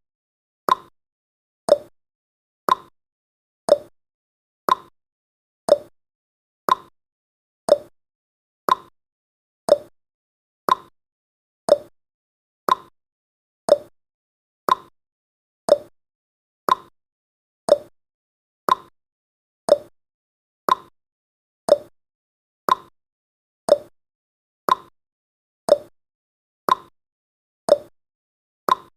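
Clock-style tick-tock sound effect of a countdown timer: short sharp ticks, one a second, alternating between a higher tick and a lower tock.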